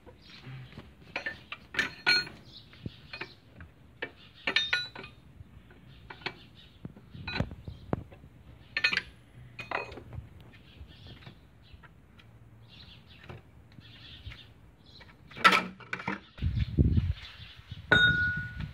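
Wrench and metal parts clinking and knocking in irregular sharp strikes while the engine's cooling fan and its viscous fan clutch are worked loose and lifted out, with a few dull thumps and a short ringing metal clink near the end.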